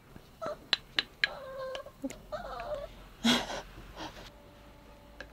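Small dog whining twice in a wavering pitch, begging to be fed. A few light clicks come before the whines, and a short, louder noise about three seconds in.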